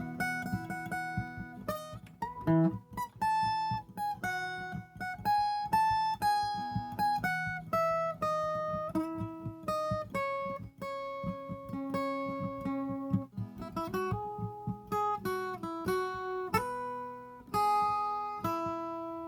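Viola caipira (Brazilian ten-string folk guitar) playing a solo film-theme melody in single plucked notes, each ringing and fading, over lower ringing strings.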